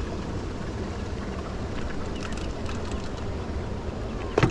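Steady low rumble of wind and water noise aboard a small fishing boat on a lake, with one sharp knock near the end.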